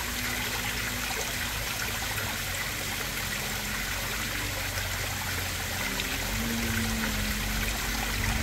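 Small rock waterfall of a koi pond, water trickling and splashing steadily into the pond. A low steady mechanical hum runs underneath and grows a little stronger near the end.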